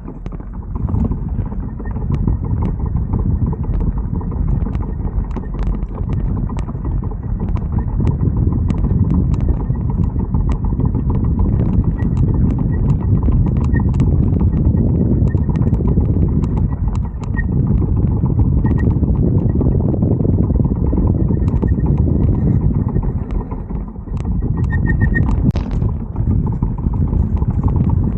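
Ebike front hub motor ticking repeatedly while the bike rolls without power, over loud wind and road rumble. The uploader calls it a weird ticking noise that comes when the throttle is let go and no torque is needed.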